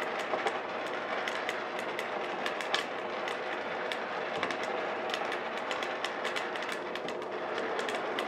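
Coffee beans in second crack, giving many small, irregular snaps, over the steady whir of a turbo convection oven's fan and a West Bend Stir Crazy popper stirring the beans. Second crack marks the roast going dark, toward full city plus and beyond.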